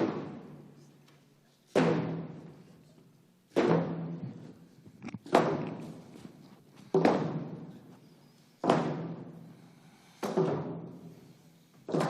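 A large drum struck slowly and evenly, about once every second and three quarters. Each stroke rings out with a low tone before the next.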